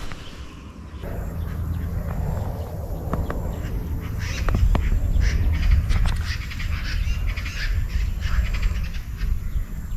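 Birds calling, many short overlapping calls, thickest in the middle, over a low steady rumble.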